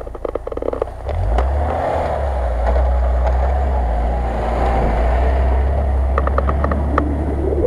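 Lada Niva 4x4's engine running steadily under load as it crawls across a steep slope, the low rumble rising about a second in. A few short clicks and scrapes come near the start and again near the end.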